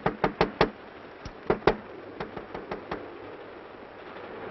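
Knuckles rapping on the glass of a railway compartment: about a dozen sharp knocks in three quick bursts in the first three seconds, the last burst lighter.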